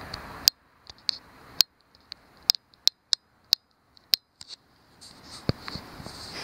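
A run of sharp, irregularly spaced clicks, about fifteen in all, over a faint high-pitched hum. A background hiss cuts off suddenly about half a second in.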